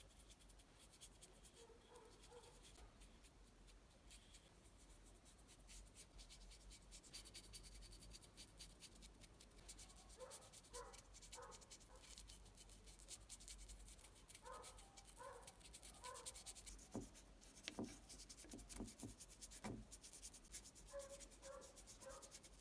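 Near silence: faint scratching, with a few faint runs of short high notes and some soft knocks around the middle and near the end.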